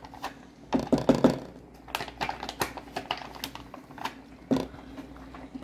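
Irregular clicks and knocks of kitchen handling at a pan as a packet of tomato sauce is emptied in, with a louder cluster about a second in.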